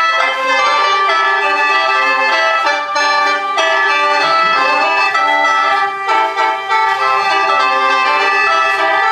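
Lao khaen, a bamboo free-reed mouth organ, playing an instrumental interlude: a running melody over steady held drone notes, with a few brief dips.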